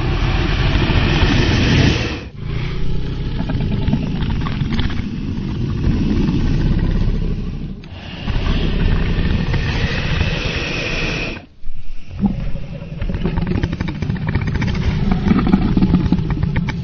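Dragon roar and growl sound effects: a run of long, deep, rough roars, with short breaks about two, eight and eleven and a half seconds in.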